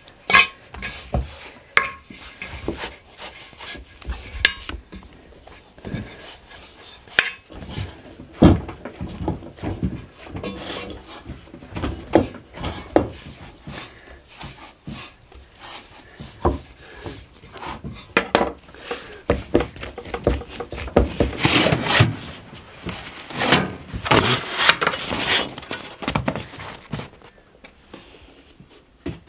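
Kitchen work: scattered knocks of wood and clinks of dishes and utensils as food is prepared, growing busier with a denser stretch of scraping and clattering about two-thirds of the way through.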